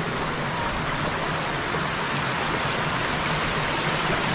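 Water running steadily down a channel in the travertine terraces, an even rushing hiss.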